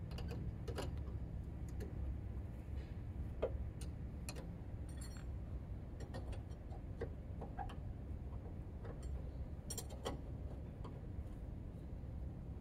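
Irregular light clicks and clinks of hand tools being handled during a tyre change, some with a short metallic ring, over a low steady hum.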